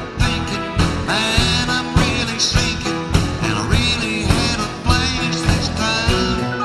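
Country band playing live, with drums, bass, electric and acoustic guitars and keyboards over a steady beat.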